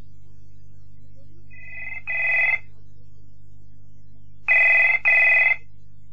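Telephone ringing with the British double ring: two ring-ring pairs about three seconds apart, the first fading in. A steady low hum runs underneath.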